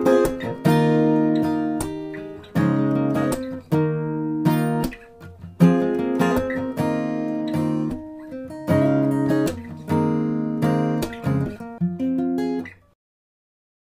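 Background music: acoustic guitar playing picked and strummed chords. It cuts off abruptly about a second before the end.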